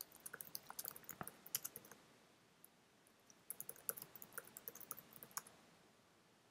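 Faint typing on a computer keyboard: a quick run of keystrokes, a pause of about a second and a half, then a second run.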